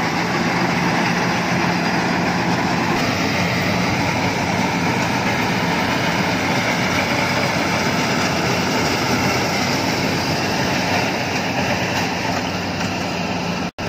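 Iseki HC80 rice combine harvester's engine running steadily as the machine works the paddy. It breaks off for an instant near the end.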